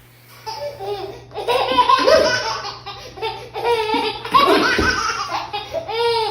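A baby laughing hard, with belly laughs in repeated bursts that start about half a second in.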